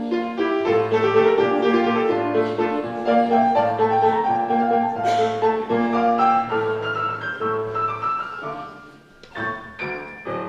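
Slow instrumental piano music with held notes over a steady repeating bass line, thinning out about three-quarters of the way through, with a few last notes near the end.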